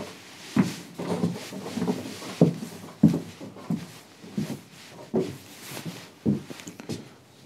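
Footsteps on bare wooden floor panels, irregular, about one to two a second, with light knocks and scuffs.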